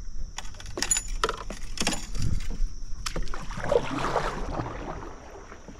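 Irregular sharp knocks and clicks of gear and paddle against a plastic kayak hull, followed by a brief swishy splash of water, over the steady high drone of insects.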